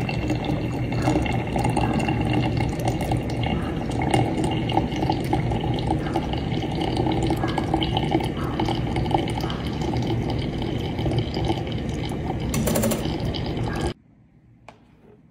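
Water pouring and trickling through coffee grounds in a filter, steady throughout and cutting off suddenly near the end.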